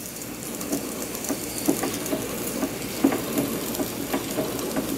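Märklin 4159 live-steam model engine being turned over by hand at its flywheel to start it: steam hisses and the cylinders give irregular chuffs and clicks as it begins to run.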